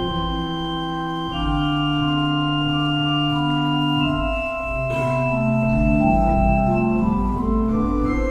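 Casavant pipe organ playing three-voice counterpoint in 8-foot stops on two manuals and pedals. Long held notes sound against moving lines of shorter notes.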